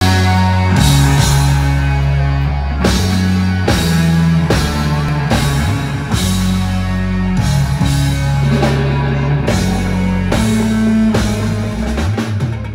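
Live rock band playing loud through a PA: electric guitar, bass and drum kit, with sustained low bass notes under regular drum hits.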